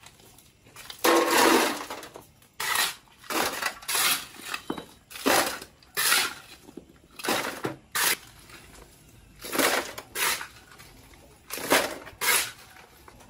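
Steel shovel scraping up broken brick rubble and tipping it into a steel wheelbarrow: a dozen or so short clattering, scraping bursts, often in pairs, with a longer scrape about a second in.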